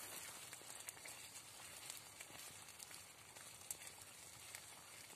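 Pan of food sizzling faintly over a wood campfire, with a few small clicks.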